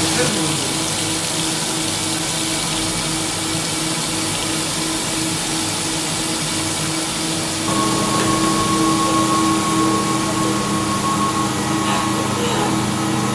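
Leadyang V12 five-axis CNC vertical machining center running, with a steady rush of coolant flow and machine hum. About eight seconds in, a higher steady whine joins in and the sound gets a little louder.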